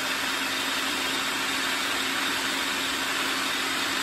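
Food processor running steadily, its blade churning soft boiled tromboncino squash into a puree: an even whir over a constant low motor hum.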